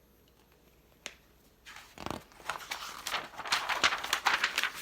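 Paper rustling and crinkling as the page of a picture book is handled and turned: a single click about a second in, then a couple of seconds of dense rustling.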